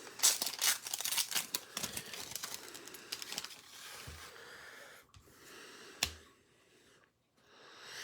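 Sports-card packaging and cards handled close to the microphone: a quick run of crinkling and clicking for a few seconds, then quieter, with one sharp click about six seconds in.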